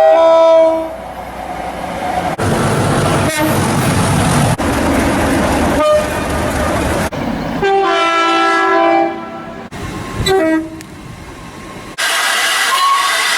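A series of short clips of locomotive air horns. A multi-note horn chord sounds briefly at the start and again for about a second and a half in the middle, with short blasts a little later. In between, trains rumble past, and each clip breaks off abruptly at a cut.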